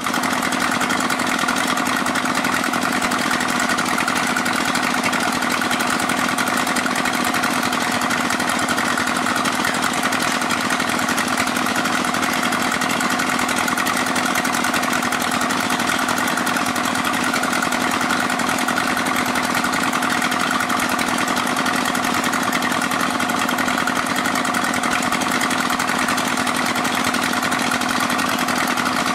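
Small petrol engine of an Alkon-type water pump running at a steady, constant speed, as used to suck up sand.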